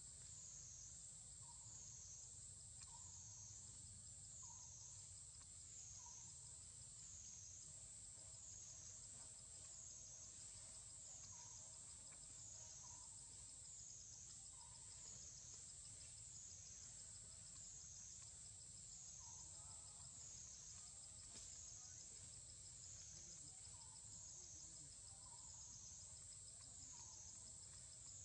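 Faint forest ambience: a steady high-pitched insect drone that wavers up and down in pitch about every second and a half, with faint short bird notes repeated in runs of three or four.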